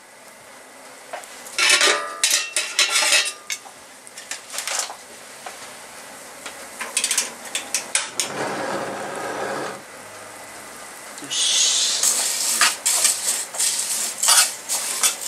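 Metal tongs clinking and scraping against a steel paella pan as dry fideo noodles are stir-fried in olive oil, in uneven bursts of clatter. About eleven seconds in a steady hiss sets in under the clatter.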